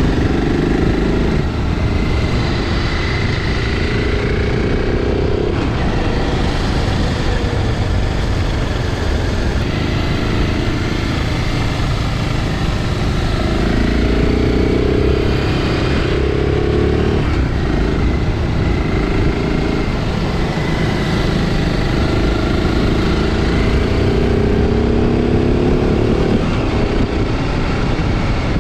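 BMW G650 Xcountry's single-cylinder engine running under way, its pitch climbing and dropping back every few seconds as the throttle and gears change. A heavy low wind and road rumble runs underneath.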